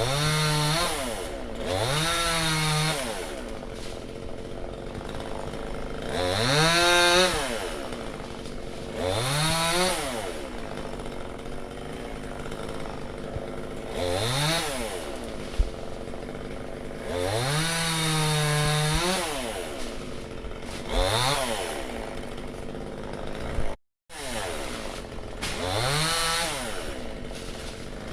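Two-stroke chainsaw revved up to full throttle and let fall back to idle again and again, sometimes held high for a second or two. The sound drops out for a moment about three-quarters of the way through.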